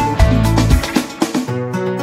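Background music with a steady beat and bass under short pitched notes; the beat and bass drop out about one and a half seconds in, leaving held notes.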